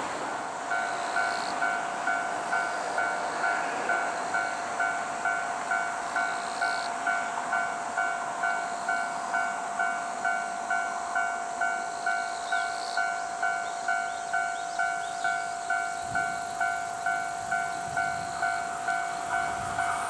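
Japanese level-crossing warning bell ringing: an electronic two-tone clang repeating about one and a half times a second, starting about a second in. It signals an approaching train. In the last few seconds the rumble of the approaching 381 series limited express electric train builds under it.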